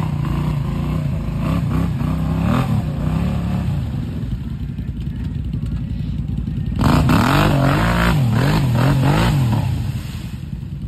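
ATV engine revving up and down as its tires spin in deep mud, the rider working the throttle to drive out of the hole. About seven seconds in it revs hardest, rising and falling several times with mud and water spraying, then drops back near the end.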